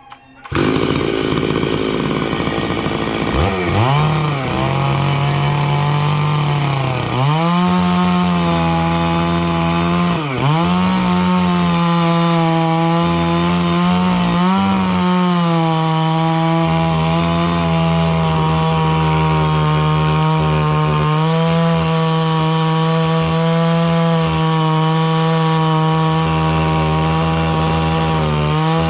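Stihl 660 two-stroke chainsaw with a 36-inch bar rip-cutting dry larch lengthwise, running hard under load. It starts suddenly about half a second in. Its pitch dips and recovers several times over the first fifteen seconds, then holds steady.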